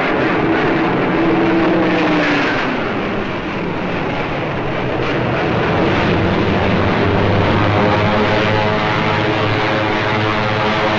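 Piston engines of propeller-driven RAF fighter planes running as they taxi out, a loud continuous drone. A tone falls in pitch in the first couple of seconds, and from about six seconds in the engine note settles into a steadier pitched hum.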